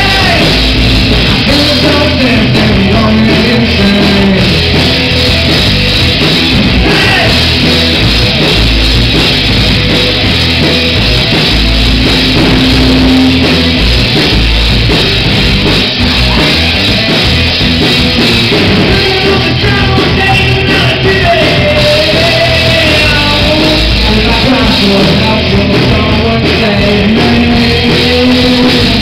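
Live rock band playing: a singer's voice over electric guitars and a drum kit, loud and continuous.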